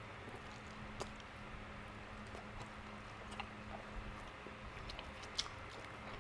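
Close-up eating sounds: biting and chewing meat off a barbecued pork rib held in the hands, quiet, with a few short sharp mouth clicks, the loudest about five seconds in, over a faint steady hum.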